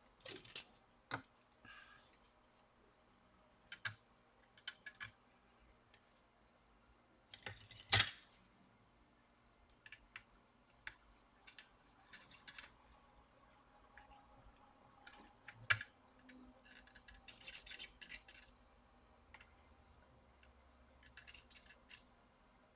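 Faint, scattered scraping and clicking of small tools against a laptop circuit board while desoldering the power jack, with a sharper click about eight seconds in and another about sixteen seconds in.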